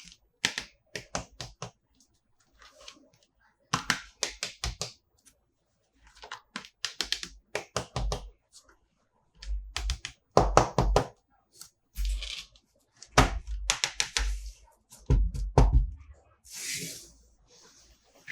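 Toys and packaging being handled: quick runs of light plastic clicks and taps, with a few heavier knocks, and a short rustle near the end.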